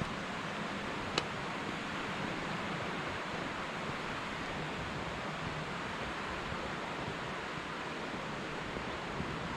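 Steady rushing noise, with one sharp click about a second in.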